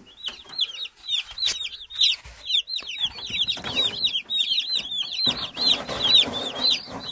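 A flock of Cobb 500 broiler chicks peeping, many short cheeps falling in pitch and overlapping, several a second. A rustling noise joins in about five seconds in.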